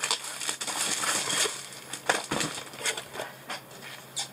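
Packaging rustling and crinkling as a diamond painting kit is unpacked by hand, with light clicks and a soft thump about two seconds in.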